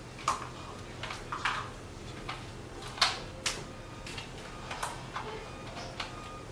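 Irregular sharp clicks and knocks, about eight of them and the loudest about three seconds in, from small hard objects being handled, over a faint steady low hum.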